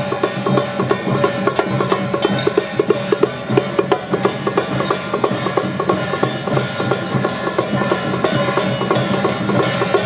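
Music with fast, dense percussion, many sharp strikes a second like drums and wood blocks, over sustained pitched instrumental tones.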